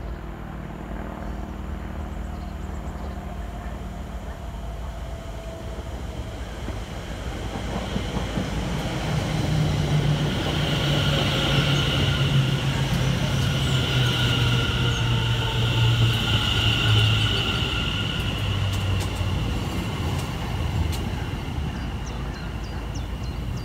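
Electric multiple unit passing along the platform: a rushing rail noise builds, peaks for several seconds as the train goes by, then fades. Under it runs a traction-motor hum and whine that slowly falls in pitch.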